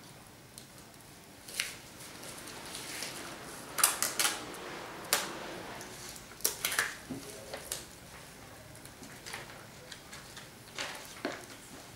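Adhesive tape pulled off a desktop tape dispenser and torn on its cutter, with paper sheets handled and pressed down: a string of short, sharp rips and crackles, bunched about four seconds in and again around six to seven seconds.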